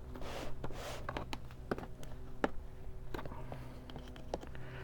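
Scattered small clicks and taps with a brief rustle, from the seat's plastic upholstery clips and trim being handled and hooked onto the frame, over a steady low hum.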